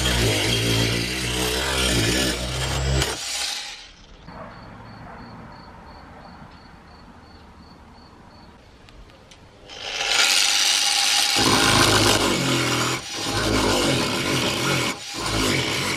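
Angle grinder driving a reciprocating chisel attachment, the chisel chopping into a wooden beam and paring off shavings. It stops about three and a half seconds in, leaving a quieter stretch, and starts cutting again about ten seconds in.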